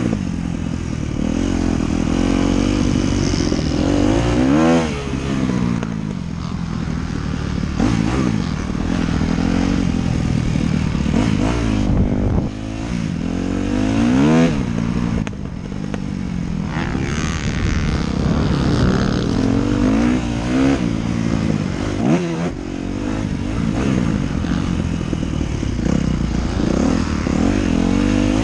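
Dirt bike engine revving up and falling back again and again as it is ridden hard around a motocross track, heard close from a helmet-mounted camera.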